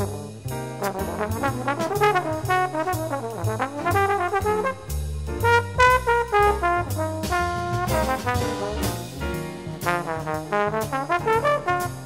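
Small jazz quintet of alto saxophone, trombone, piano, bass and drums playing a swinging tune. A horn plays quick melodic lines over a walking bass, with cymbal strokes throughout.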